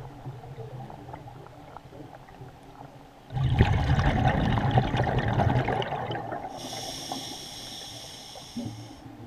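A diver breathing underwater through a regulator. From about three seconds in there is a loud crackling burst of exhaled bubbles that fades out, followed by a steady high hiss of an inhaled breath lasting about two and a half seconds.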